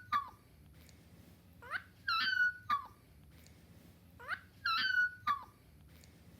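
A dog's squeaky yawn, a whine that glides up, holds a high note and drops off in a short squeak. It repeats about every two and a half seconds, sounding the same each time, as if one yawn were looped. The tail of one yawn comes right at the start, then two whole yawns follow.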